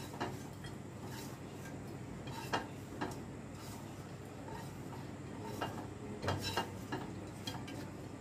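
A spatula scraping fried taro pieces out of a non-stick kadhai and knocking against the pan and a steel bowl: scattered short taps and scrapes, about a dozen, over a faint steady hum.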